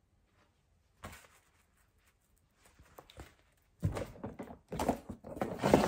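Handling noises from unpacking a spray mop: a single soft thump about a second in, then from about four seconds in a busy run of knocks and rustles as its parts are picked up and moved.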